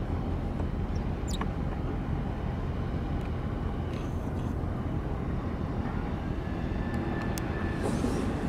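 Steady low rumble of a large bulk carrier passing close at slow speed, with a few faint clicks over it.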